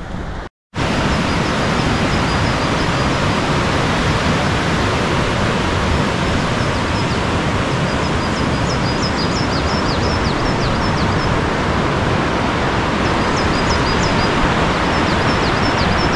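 Steady rushing of a fast-flowing stream, starting after a brief gap about half a second in, with small birds chirping in short calls, in clusters around the middle and near the end.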